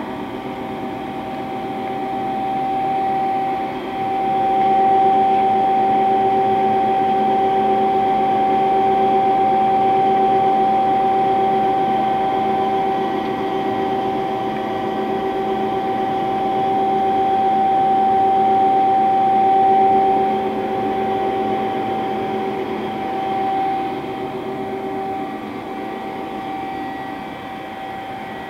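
Steady machine whine with a hum beneath from a powered-up Hwacheon Hi-Tech 200A CNC turning center. It grows louder about four seconds in and eases off somewhat after about twenty seconds.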